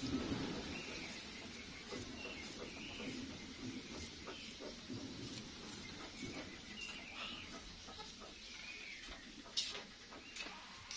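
Short bird chirps come and go in the background, with a few sharp snaps as green bean pods are broken by hand, the loudest snap near the end.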